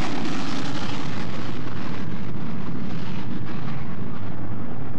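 A fighter jet's twin engines running at full afterburner on a takeoff roll: a loud, steady rushing noise that grows duller near the end.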